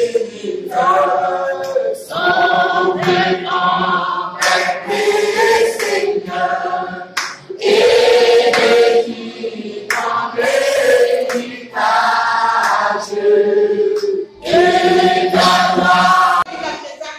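A small mixed choir of women and men singing a hymn together, in phrases separated by short breaths.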